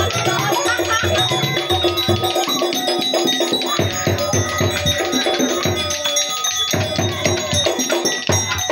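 Accompaniment music for a topeng monyet monkey show: a drum beat with steady ringing bell-like metal tones over it, the low beat dropping out briefly about six seconds in.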